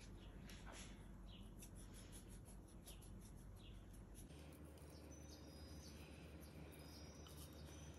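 Near silence: faint room tone with soft ticks in the first half and a few brief, faint high chirps in the second half.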